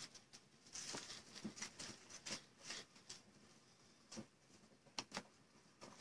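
Faint, irregular light clicks and taps, like typing on a keyboard.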